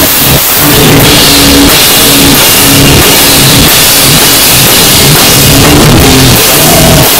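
Hardcore band playing live at close range: loud distorted electric guitars over pounding drums and cymbals, the recording pushed to full level.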